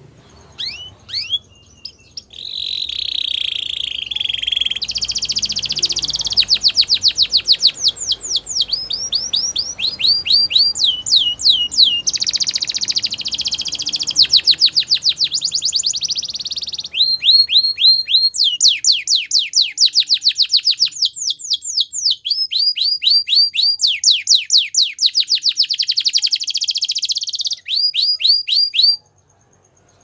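Canary singing a long, loud song of rapid trills. Each phrase is a fast run of repeated falling notes, switching to a new phrase every second or two. The song starts about two seconds in and stops suddenly near the end.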